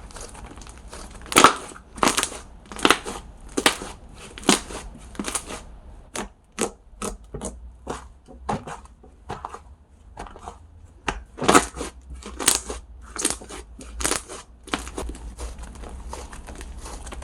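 Slime being pressed and squeezed by hand close to the microphone, giving sharp pops and crackles about once a second, with a run of quicker, smaller clicks in the middle.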